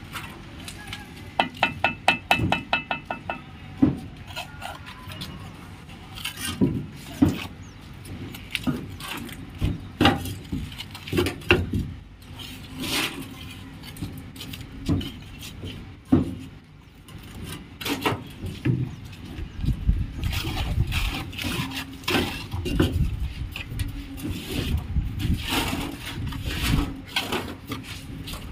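Irregular knocks and clinks, with a quick run of rapid ringing ticks between about one and three seconds in.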